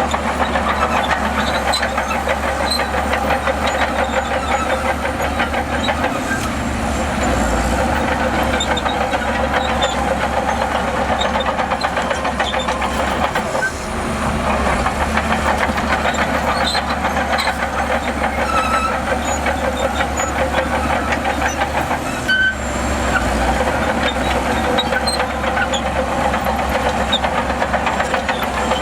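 Crawler bulldozer working: its diesel engine running steadily under load with a fast, continuous clatter of steel tracks.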